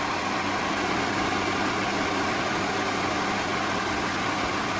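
Steady whir and hum of equipment cooling fans, even and unchanging, with a few faint steady tones running through it.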